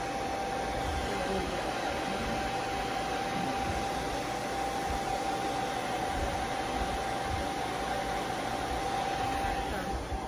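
Handheld hair dryer running at a steady pitch, a rush of air with a thin whine from its motor, cut off right at the end.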